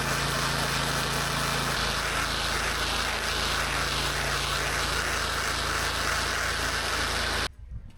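8 GPM pressure washer running, its engine humming steadily under a broad hiss of high-pressure water spraying concrete. The sound cuts off suddenly near the end.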